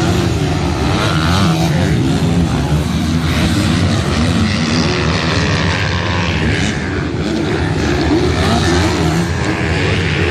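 Several MX2-class motocross bikes racing, their engines revving up and down with overlapping pitches as riders work the throttle.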